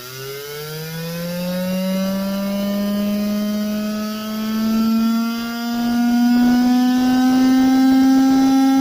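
DIY e-bike engine sound-effect circuit playing through a large speaker: a buzzy, engine-like drone whose pitch climbs steadily over the first few seconds as the motor speeds up, then levels off, growing louder.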